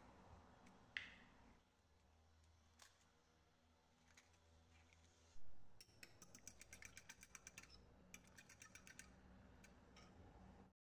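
A metal fork beating raw eggs in a small ceramic bowl: faint, quick clinks of the fork against the bowl, about six a second, in two runs, with a louder knock just before they start.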